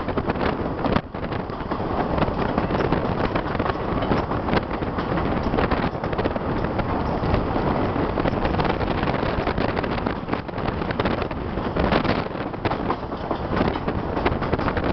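Chepe passenger train running, heard from an open coach window: a steady rumble of wheels on rail and rattling of the car, with wind buffeting the microphone.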